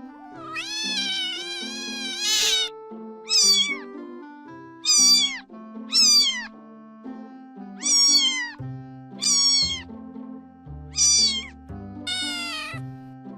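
A cat meowing repeatedly, about eight meows, the first one long and the rest short, most falling in pitch at the end. Background music plays underneath, with a bass line coming in about two-thirds of the way through.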